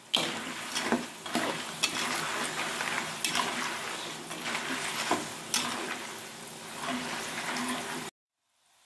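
Kerupuk crackers frying in oil in an aluminium wok, with the hiss of the oil and the clicks and scrapes of a metal spoon on the wok as the crackers are stirred and turned. The crackers are not yet done. The sound cuts off suddenly near the end.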